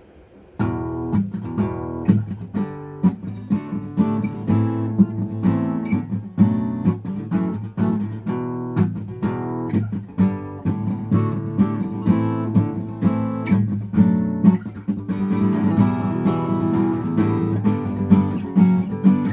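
Acoustic guitar strummed in a steady rhythm, playing chords, starting about half a second in; about three-quarters of the way through, the strumming becomes denser and fuller.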